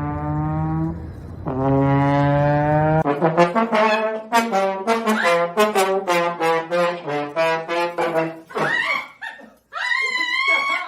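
A brass instrument played as a comic sound effect: two long held notes, then a run of quick short notes at about three or four a second. Near the end comes a different wavering, bending sound.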